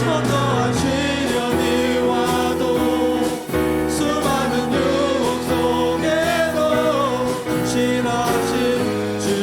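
Christian praise music: a wavering sung melody over held accompaniment chords, playing steadily.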